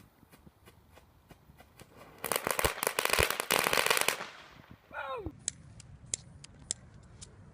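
Small category 1 consumer firework crackling: faint scattered ticks build into about two seconds of dense, rapid, loud crackling pops. A short whistle drops steeply in pitch near five seconds, followed by several sharp isolated pops.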